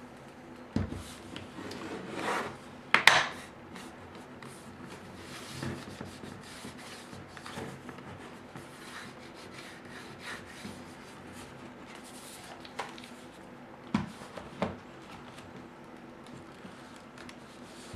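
Hand work on a laptop's plastic casing and bezel trim: rubbing and scraping of plastic parts, with a few sharp clicks and knocks as pieces are pressed into place, the loudest about three seconds in and two more near fourteen seconds.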